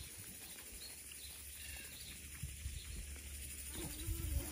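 Faint bird chirps over low wind rumble on the microphone, with a short, low, drawn-out animal sound about a second long near the end.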